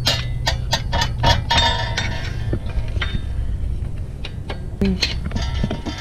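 Steel bar tapping and clinking against a car's front wheel hub bearing assembly as the unbolted hub is worked loose from the steering knuckle. There is a quick run of metal clinks for the first couple of seconds, then a few scattered knocks.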